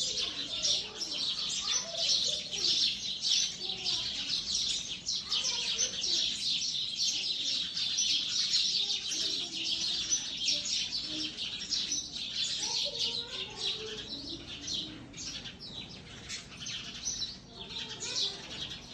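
Sparrows chirping in a dense, continuous stream of short overlapping chirps, busiest in the first half and thinning out toward the end.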